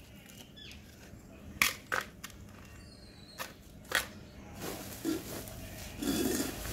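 A handful of sharp knocks and crunches as a cement flower pot is handled and set down on a tiled floor, with dry potting soil crumbling.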